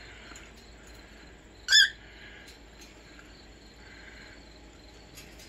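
Cockatiel giving one short, loud chirping call a little under two seconds in.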